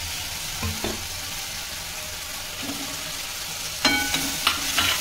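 Red sauce sizzling and frying in a steel kadai while chopped vegetables go in and are stirred with a spatula, a steady hiss throughout. About four seconds in a sharp metallic clink rings out against the pan.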